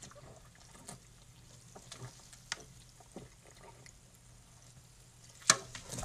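Faint gulping and swallowing of a person chugging a can of sparkling water, with small scattered clicks, then one short sharp sound near the end.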